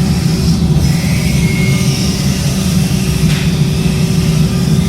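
A machine motor running steadily with a loud, even low hum.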